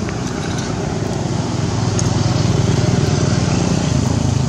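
Small motorbike engine running steadily, growing louder about two seconds in.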